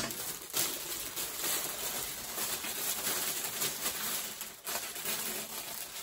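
Clear plastic wrapping rustling and crinkling as a large wrapped carry bag is handled. A light knock comes about half a second in.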